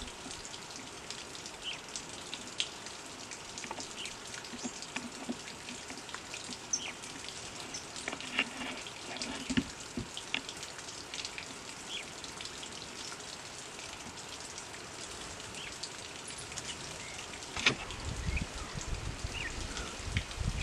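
Outdoor woodland ambience: a steady hiss scattered with many short high ticks and brief chirps of small birds. A low rumble comes in near the end.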